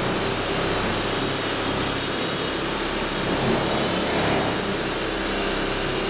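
Electric random orbital buffer running steadily, its terry cloth pad buffing scratch-remover polish on a powder-coated refrigerator door.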